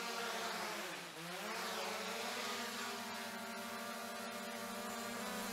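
DJI Mini 2 quadcopter's propellers buzzing in flight. The pitch dips sharply and comes back up about a second in, then holds steady.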